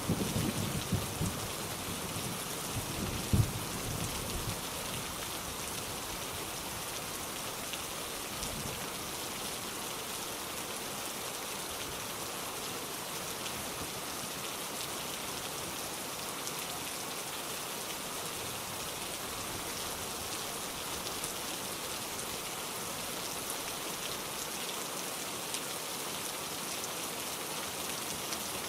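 Steady, even rain hiss throughout. In the first few seconds a low thunder rumble fades out, with one sharper peak about three seconds in.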